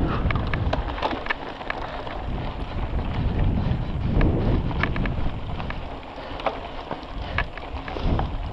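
Wind buffeting the microphone of a mountain bike ridden on a dirt race course, easing off in the middle, with scattered sharp clicks and rattles from the bike over the rough trail.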